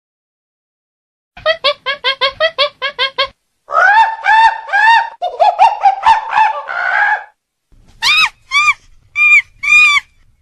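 Monkey calling: a quick run of short calls, then a string of longer calls that rise and fall in pitch, then four separate high-pitched calls near the end.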